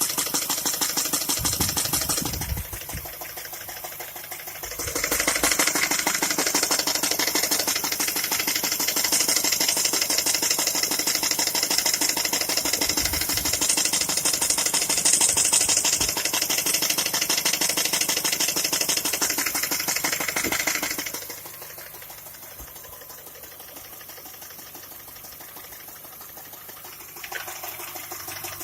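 Škoda Octavia A5 1.6 MPI petrol engine running with a fast, even metallic knocking ticking through it: the knock whose cause the owner is asking about. It is louder for a long stretch in the middle, then drops back to a quieter run.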